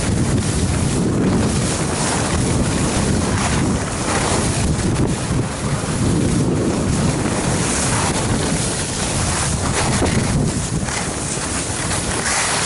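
Wind buffeting the microphone while skiing downhill, mixed with the hiss and scrape of skis on firm, packed snow, swelling and easing every second or two.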